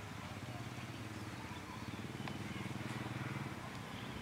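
A small engine idling: a low, steady, rapidly pulsing rumble that grows louder about halfway through.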